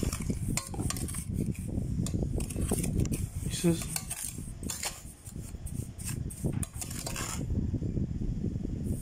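Long metal spatula scraping and clinking against a metal pot as it stirs dry, granular grape gulaman mix.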